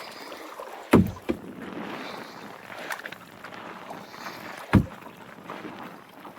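Kayak paddling on a river: a steady wash of water along the hull and paddle, broken by sharp, deep knocks, a loud one about a second in, a smaller one just after, and another about five seconds in.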